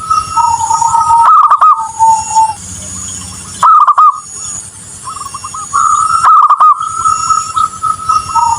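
Zebra dove (perkutut) cooing: phrases of soft rolling coos at a steady pitch, broken by quick bursts of rapid warbling notes. The phrase repeats about every three seconds.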